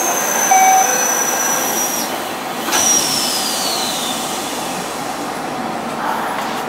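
Yokohama Municipal Subway Blue Line 4000 series train heard from inside the car: a high electric whine from the traction equipment glides slowly down in pitch, breaks off about two seconds in, and a second falling whine follows about a second later, over steady running noise.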